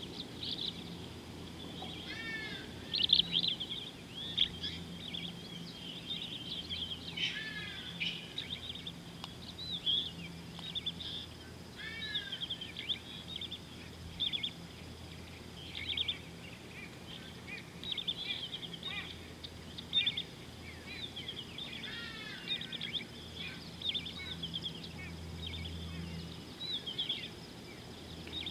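Wild birds chirping and calling over and over in short high notes, with a few calls that sweep down in pitch.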